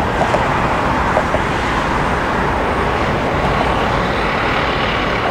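Steady roar of an Airbus A380's four jet engines at takeoff power during the takeoff roll, blended with road traffic.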